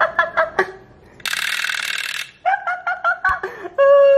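A wind-up chattering-teeth toy's clockwork mechanism whirrs for about a second in the middle. Before and after it comes quick, high-pitched giggling, and near the end a steady, high-pitched vocal note is held for about a second.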